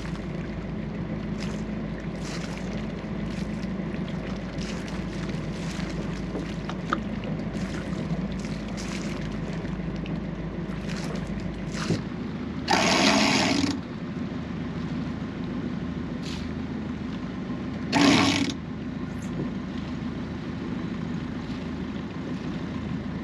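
A boat engine running steadily at low revs, with scattered light clicks. Two loud short bursts of noise break over it, a first one lasting about a second just past halfway and a shorter one about five seconds later.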